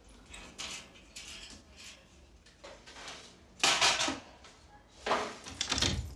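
Metal rattling and clattering as a wire pet cage is handled, followed near the end by keys jangling and scraping into a door lock. The sounds come in several separate bursts, the loudest about two-thirds of the way through.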